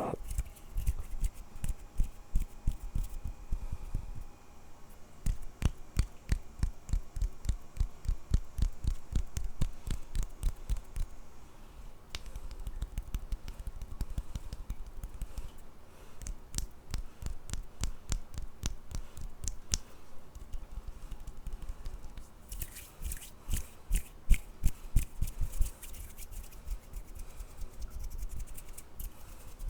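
Hands worked close to the microphone: long runs of quick taps and clicks with soft thumps, then a stretch of brushing, rubbing noise about 23 seconds in.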